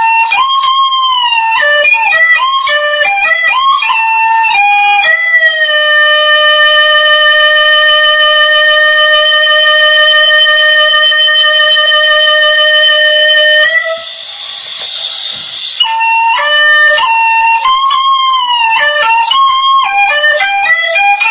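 Hmong raj (bamboo flute) playing a melody of sliding, bending notes, holding one long steady note for about eight seconds in the middle. The tune breaks off for about two seconds with a hiss, then resumes.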